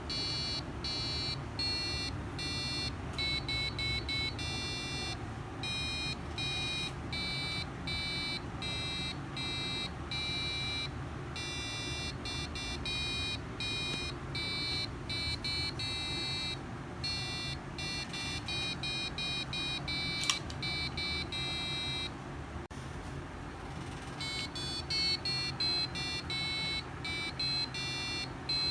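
Piezo buzzer driven by an Arduino UNO playing a song as a quick series of short beeping notes that change pitch, with a brief pause near the end before the notes resume. A steady low hum runs underneath.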